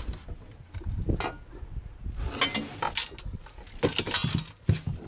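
Knocks and clatter of a measuring board and a landing net being handled on a boat deck: scattered clicks in the first half, then a busier run of knocks from about halfway through.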